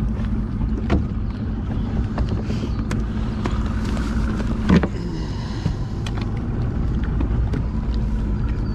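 Bass boat's outboard motor running steadily. A single sharp knock comes a little past halfway.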